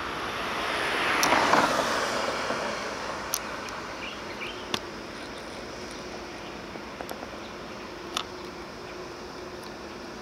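A road vehicle passing close by, its tyre and engine noise swelling and fading over about two seconds near the start. After that, a steady low hum with a few sharp clicks over outdoor background noise.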